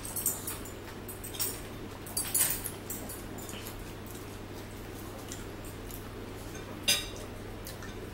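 Eating at a table: a few scattered clicks and clinks of fingers and a fork on plates, with chewing, over a steady low hum.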